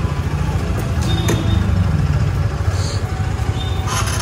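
KTM Duke 250's single-cylinder engine idling steadily.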